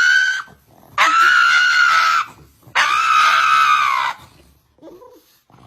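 Three long, high-pitched screams: the end of one in the first half-second, then two held screams of about a second each, each at a steady pitch.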